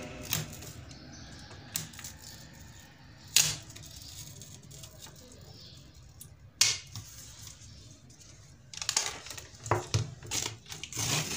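A few sharp plastic clicks and taps as an LCD panel's frame and wiring are handled, then a crackling rustle near the end as a paper sheet is peeled off the panel.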